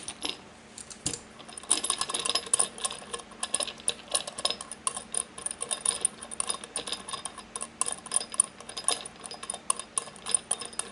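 Metal ticking and clinking as the yoke nut of an Argonaut Kraken double hose regulator is loosened with a wrench and turned off by hand, the chrome yoke rattling against the nut. The quick, uneven ticks start about two seconds in and keep going.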